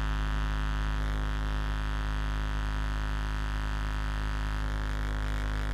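Steady electrical hum: a loud, unchanging drone with a strong bass and many even overtones.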